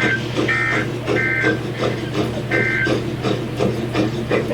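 Weather radio data bursts: short buzzy digital two-tone screeches, the SAME end-of-message code sent after a warning is read, heard four times in the first three seconds over a steady hum.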